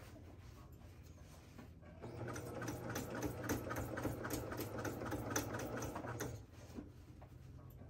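Electric domestic sewing machine running a short burst of stitches, starting about two seconds in and stopping a little after six seconds, as it topstitches along the top edge of a fabric basket.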